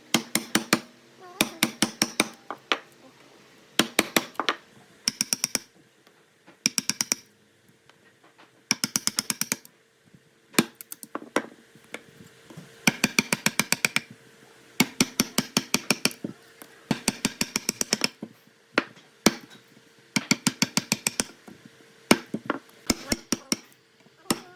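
Bursts of rapid, sharp tool strikes in a woodworking shop, about a second of quick taps at a time with short pauses between, over a faint steady hum.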